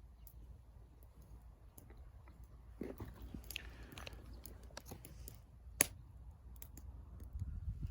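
A person chewing and biting close to the microphone, with sparse sharp clicks, a denser crunchy patch about three seconds in and one loud click near six seconds, over a low steady rumble.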